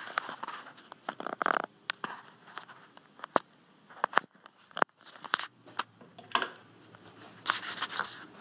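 Handling noise from a phone being moved while filming: scattered sharp clicks and short bursts of rustling, with a longer rustle about a second in and another near the end.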